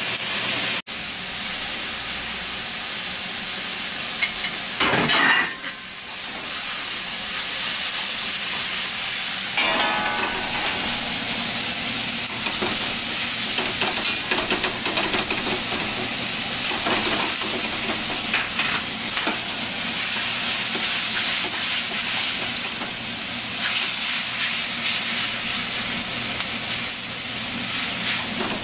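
Stir-fry vegetables sizzling steadily in a hot wok, with a spatula scraping and stirring through them and a few louder clatters.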